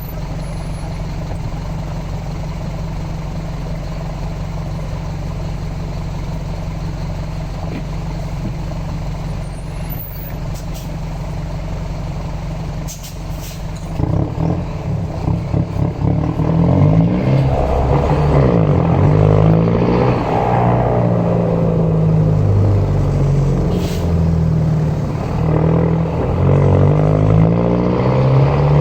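Mercedes-Benz OM924LA four-cylinder turbodiesel of a LO 916 bus idling steadily. About halfway through it gets louder and the engine note rises and falls several times as it revs up under power.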